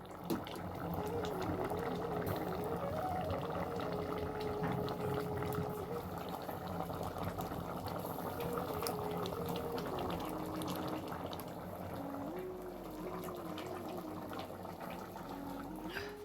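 A steady watery hiss of something boiling, with a soft flute melody playing over it.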